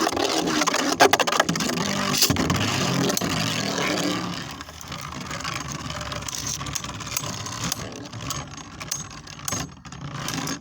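Beyblade Burst spinning tops whirring and clashing in a plastic stadium, with many sharp clicks as they hit each other and the walls. They are loudest for the first few seconds, then quieter as the tops slow down.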